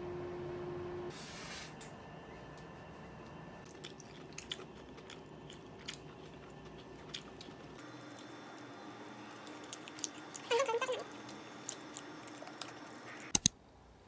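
Close-up chewing and biting into crispy fried chicken, with small crunches and clicks of dishes and cutlery, a brief squeak a little past halfway, and two sharp knocks near the end.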